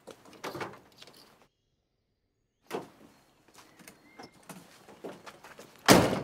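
A few faint knocks and rustles, a moment of silence, then scattered small clicks and a door shutting hard just before the end, the loudest sound here.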